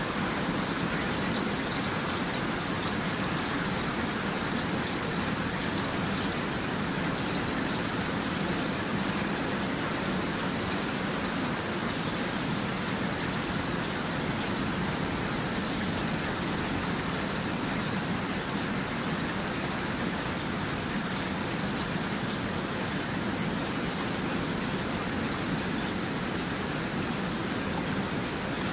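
Rain falling steadily: an even hiss of rainfall with faint scattered drop ticks, unchanging throughout.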